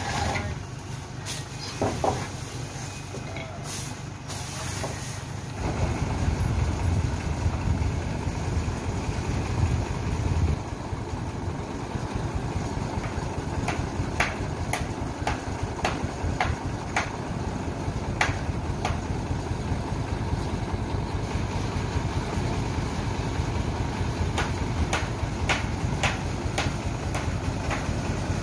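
A truck engine runs steadily to power a Furukawa Unic UR-V340 truck-mounted crane, getting louder about six seconds in. Sharp knocks and clanks come now and then as the steel frame hanging from the crane on chains is handled over the truck bed.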